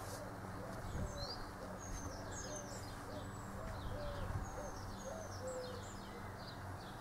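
Birdsong: small birds chirping in short, quick high notes, and a pigeon cooing in a run of short low notes about two a second, over a faint steady low hum.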